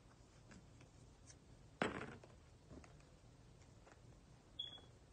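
Faint handling of a screen protector kit's packaging: a few light ticks and one sharp click about two seconds in.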